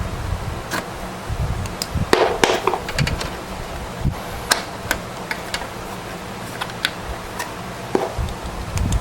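Irregular sharp clicks and light knocks of hard plastic and metal computer parts being handled in a desktop PC case, over a steady low hum, with a busier run of knocks about two seconds in.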